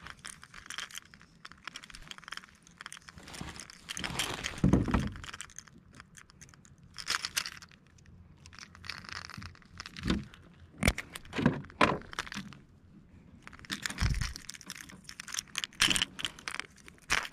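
Close handling noise while rigging a jointed swimbait: rustling, small clicks, and the lure's treble hooks clinking, with a couple of louder dull knocks about four seconds in and again near the fourteenth second.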